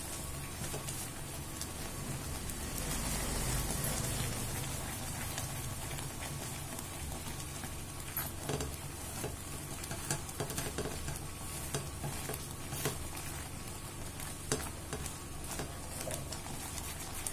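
Thick almond halwa paste cooking with ghee in a non-stick pan, sizzling and bubbling as a spatula stirs and scrapes through it, with many small scattered ticks and taps.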